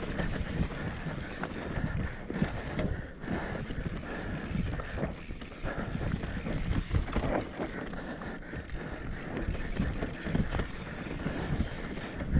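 Wind rushing over an action camera's microphone as a mountain bike descends a dry dirt singletrack, with the tyres rolling over dirt and pine needles and the bike knocking and rattling over bumps.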